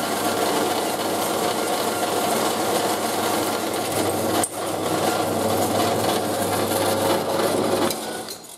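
Metal-cutting band saw running steadily as it cuts through the rusted steel pin of an ATV trailer's drawbar hitch, with a brief dip about halfway through. It stops shortly before the end.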